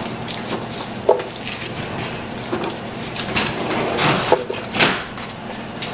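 Chicken bouillon cubes being unwrapped and dropped into a blender jar: small rustling, clicks and light taps, a few of them sharper, around the rim of the jar.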